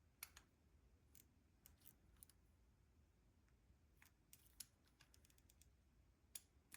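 Faint, scattered light clicks of a small tool against metal carburettor parts as a jet is snugged into a Mikuni carburettor body, over near silence.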